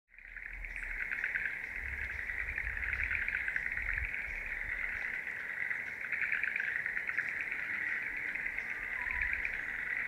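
Insect chorus: a continuous, dense, fast-pulsing trill at one steady pitch.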